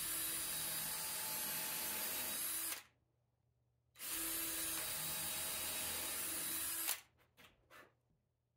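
Cordless drill running in two steady runs of about three seconds each, with a pause between, boring into a pine bed slat for its two screws; a few brief sounds follow near the end.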